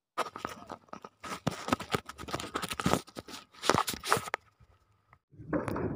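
Close crackling and rubbing handling noise on a phone's microphone, lasting about four seconds and then stopping. A motorcycle engine starts up near the end.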